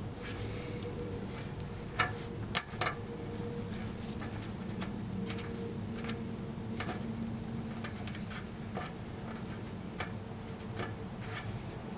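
Light metallic clicks and taps of a wrench on the exhaust oxygen sensor's hex, scattered throughout with two sharper clacks a little after two seconds in, over a faint steady hum.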